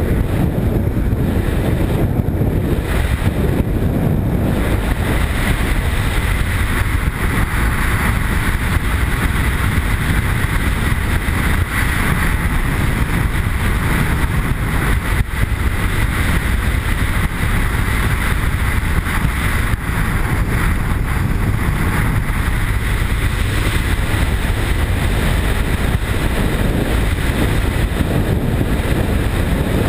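Steady rush of wind and road noise from a BMW R1150 GS motorcycle cruising at highway speed, with the bike's boxer-twin engine running underneath.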